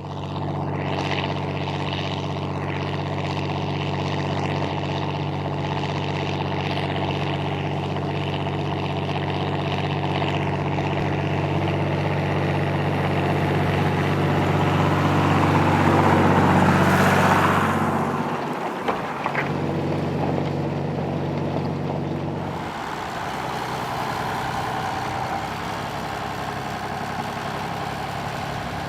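John Deere 3140 tractor's six-cylinder diesel engine growling steadily under load while pulling a four-furrow plough. It grows louder as the tractor draws near, dips in pitch as it passes about two-thirds of the way through, then runs on quieter.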